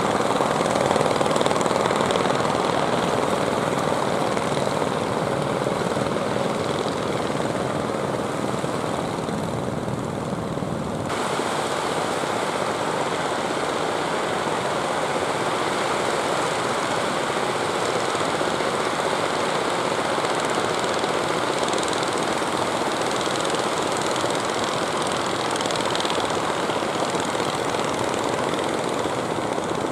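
Fishing boat engines running steadily, heard over the wash of waves and surf. The sound changes abruptly about eleven seconds in.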